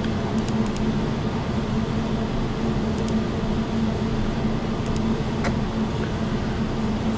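Steady low electrical or machine hum with hiss, and a few faint clicks scattered through it.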